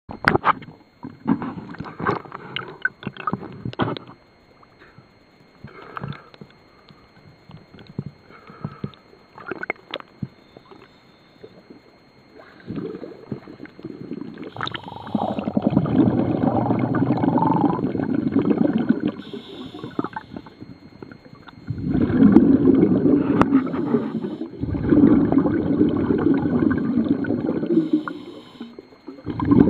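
Scuba regulator exhaust bubbles gurgling underwater as a diver breathes out, in three long swells in the second half. Scattered clicks and knocks come in the first few seconds.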